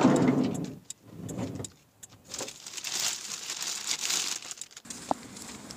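Plastic grocery bags rustling and crinkling as they are grabbed and lifted from a van floor, from about two seconds in until near the end. A low rumble dies away in the first second, and a short sharp sound comes just after five seconds.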